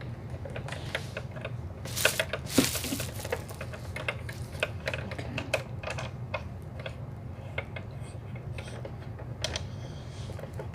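Ring light and its stand being handled and adjusted: scattered clicks and rattles, busiest about two to three seconds in.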